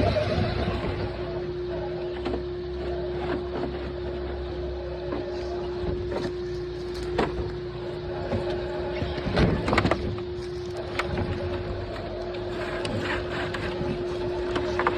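Electric motor and geared drivetrain of an RC rock crawler truck whining at one steady pitch as it drives, with scattered clicks and knocks from the tyres and chassis working over rocks.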